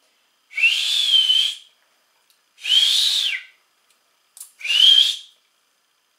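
Three loud whistle blasts, each about a second long: a breathy tone that rises quickly to a steady high pitch, the second one dropping away at its end. They are blown at a sound level meter to test its maximum reading.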